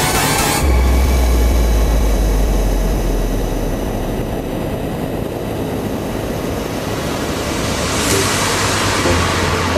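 Onboard sound of a Kawasaki ZX-6R inline-four sport bike riding at road speed, with wind rush over the camera. A low engine drone fades about four seconds in, and a louder rush of wind comes with the drone's return near the end.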